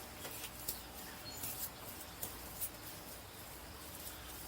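Faint, short, high-pitched bird chirps and ticks, scattered irregularly, over a quiet outdoor background.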